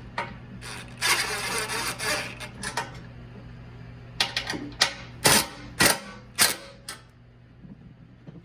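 Handling noises from work on parts: a rustling scrape about a second in, then a run of sharp clicks and knocks, the four loudest about half a second apart.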